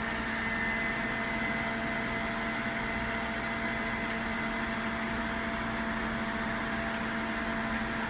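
Steady hum of running machinery, with a low drone and a few fainter higher tones. A couple of faint sharp ticks sound about four and seven seconds in.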